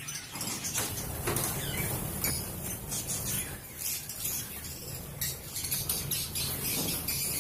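A colony of Fischer's lovebirds chattering with many quick, high-pitched chirps and squeaks, mixed with light clinks and rattles as a wire-mesh aviary door is opened and someone climbs inside.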